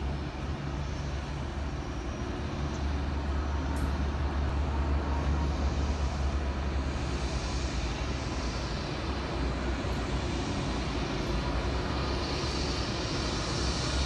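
Distant jet airliner engines on landing approach: a steady roar with a low rumble under it, the high hiss swelling near the end as the plane comes closer.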